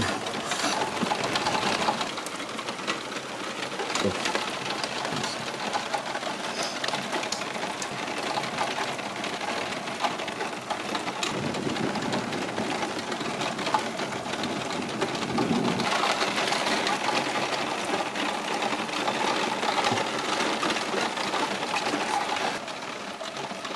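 Heavy rain falling, the drops ticking densely on a hard surface close by as a steady hiss full of small clicks.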